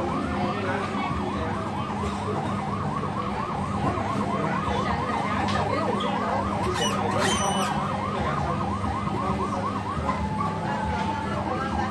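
Electronic yelp siren of a coin-operated fire truck kiddie ride: a quick rising wail repeating about four times a second over a low hum. It stops about ten seconds in, followed by a short steady tone.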